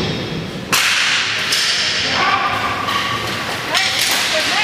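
Inline hockey play on a rink: a sudden sharp crack under a second in, then continuous noisy play sound with faint distant shouts.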